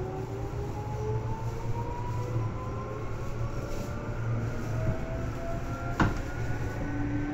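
Running sound of a Seibu 2000 series electric train, gathering speed: several motor tones rise slowly and together in pitch over a steady low rumble. There is one sharp click about six seconds in.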